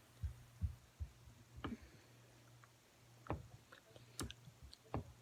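Faint, scattered clicks and soft chewing sounds, about eight in all, over a low steady hum.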